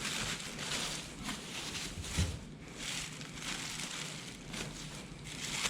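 Rustling and crinkling of packaging as a newly delivered wheel is handled, in uneven swells of scratchy noise.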